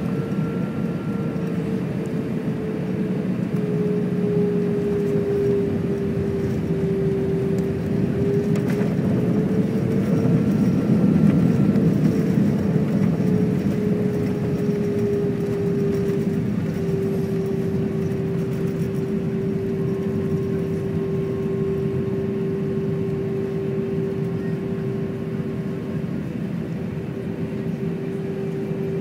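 Cabin noise inside an Airbus A319 airliner: the steady rush of the jet engines and airflow, with a humming engine tone that slides down a little and then holds steady. The noise swells briefly about eleven seconds in.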